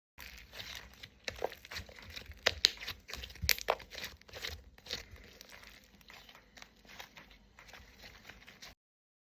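Homemade white-glue slime being mixed and worked, making irregular sticky clicks and crackles. The sound is loudest a few seconds in and softer after that.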